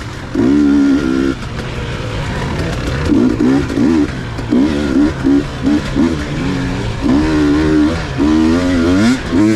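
Racing dirt bike engine under hard throttle, the revs climbing and dropping again and again in short surges, a few of them quick and choppy around the middle, as the rider accelerates, shifts and rolls off. Steady wind and track noise sits underneath.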